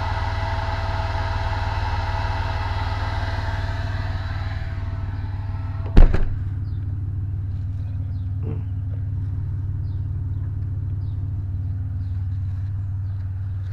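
Steady low hum of an idling car with the hiss of an amplifier cooling fan running, the hiss fading out about five seconds in. A single loud thump about six seconds in.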